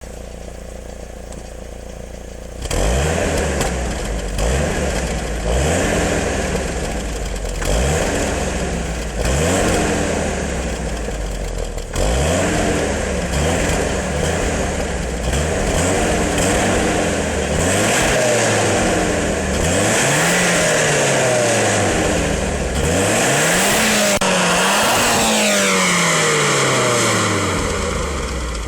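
Nissan 200SX S13's stock engine, a turbocharged 1.8-litre four-cylinder, running with a steady lower hum, then loud from about three seconds in as the revs climb and drop again and again. Later the revs rise and fall in longer sweeps and wind down steadily near the end.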